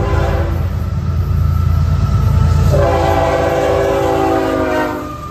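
Diesel locomotive air horn sounding for a grade crossing: the end of one blast, then a long blast of about two seconds starting about three seconds in. Underneath is the low rumble of the approaching locomotives.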